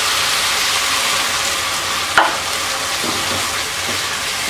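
Onion-tomato masala sizzling in a hot non-stick karai while a wooden spatula stirs it, with one sharp scrape of the spatula against the pan about two seconds in.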